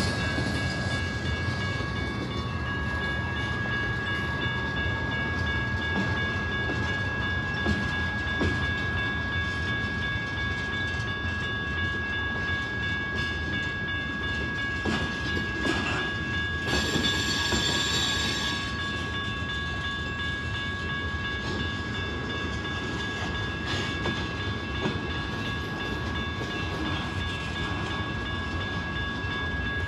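Freight train rolling past: low rumble and wheel clatter of covered hopper cars and an autorack on the rails, over the steady ringing tone of the grade-crossing signal bell. A short hiss cuts in just past halfway.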